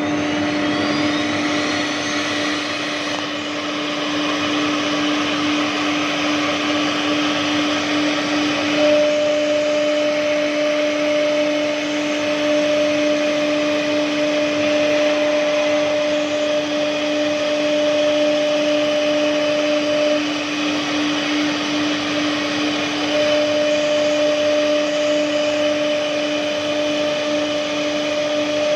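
CNC router running while it cuts MDF: a steady machine whine over a broad hiss of cutting noise, with a second, higher tone that comes in about a third of the way through, drops out, and returns near the end.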